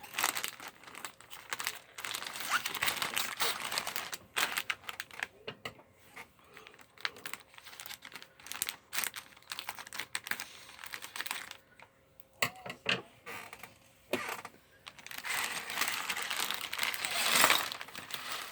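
Plastic LEGO polybag crinkling and crackling as it is handled and worked open, in stop-start bursts of rustling and small clicks, with a longer, denser crinkle near the end.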